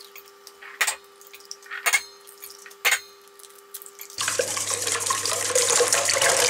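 Eggs cracked on the rim of a stainless steel mixing bowl, three sharp knocks about a second apart, then the raw eggs whisked fast in the metal bowl, a continuous wet noise from about four seconds in.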